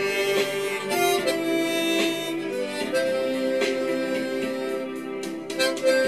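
Background music: a harmonica playing a slow melody of held notes, with a light beat behind it.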